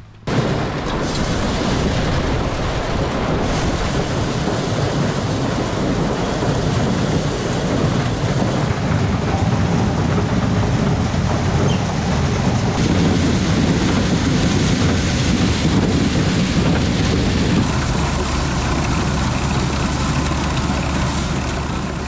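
Farm machinery running loudly: a steady engine drone under a dense rushing noise that sets in abruptly.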